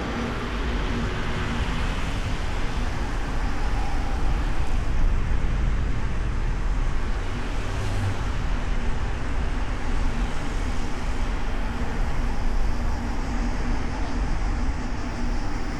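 Steady road and traffic noise from a car driving through city streets, picked up by a microphone on the car's hood: a continuous deep rumble with a faint steady hum.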